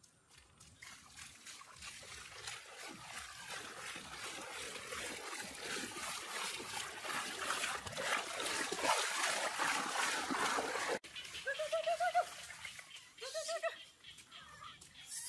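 Water splashing, growing steadily louder, then cut off abruptly about eleven seconds in. After it come a few short animal calls that rise and fall in pitch.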